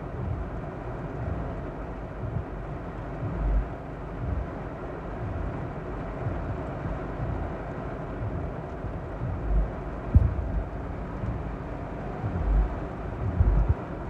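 Torrential rain beating on a car's roof and windshield in a thunderstorm with strong winds, heard from inside the car as a steady rushing hiss. Brief low thumps come a few times, twice close together near the end.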